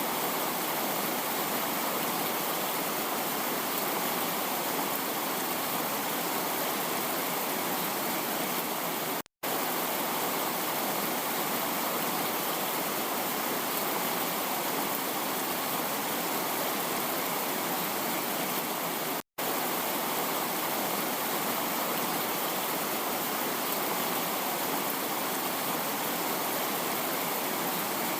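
Heavy rain falling as a steady, dense hiss, broken by two split-second dropouts to silence about 9 and 19 seconds in.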